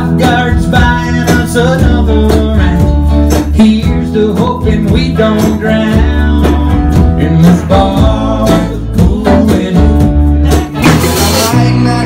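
Live country music: a strummed acoustic guitar with keyboard and a cajon beat under a man's singing. About a second before the end there is a short burst of hiss, and then louder electric-guitar band music begins.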